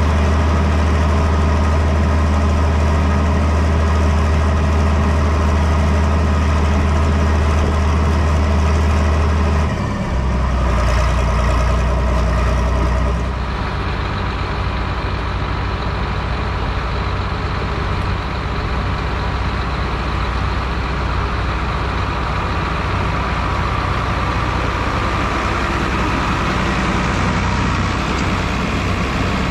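Farm vehicle's engine running steadily with a deep hum. About ten seconds in the note shifts, and a few seconds later it settles a little quieter.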